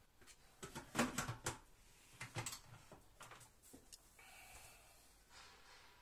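Plastic lid of a Monsieur Cuisine Connect being fitted onto its stainless steel mixing bowl: a string of sharp plastic clicks and knocks, loudest about a second in, as it is set down and locked in place. A brief faint steady hum follows about four seconds in.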